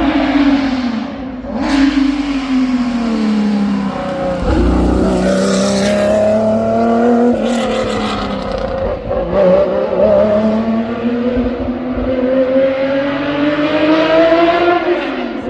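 Historic racing car engine running hard. Its pitch sinks over the first few seconds, climbs, drops sharply about halfway through, then climbs slowly again before falling off near the end.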